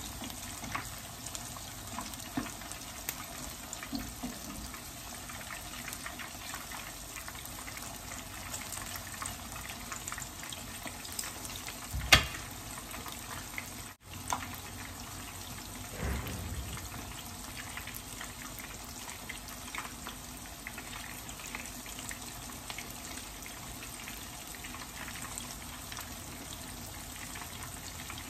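Salmon pieces coated in fish sauce and tapioca starch frying in hot oil in a pan: a steady sizzle with scattered small pops and crackles. A single sharp knock comes about twelve seconds in, and a duller thump a few seconds later.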